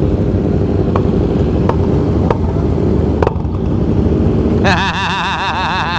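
Motorcycle engine and wind noise at riding speed, with a few sharp clicks. Near the end, a warbling, wavering high tone starts and lasts about two seconds.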